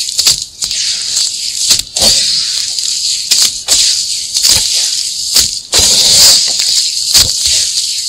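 Wet sand-mud paste crumbling and dropping into muddy water: a close, continuous wet hissing crackle with many sharp little clicks and splatters.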